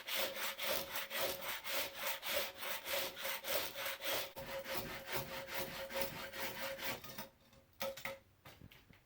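A small hand rasp-plane of the cheese-grater type (Surform-style) scraping across rough black walnut in quick, even strokes, about four a second. The strokes stop about seven seconds in, followed by a couple more.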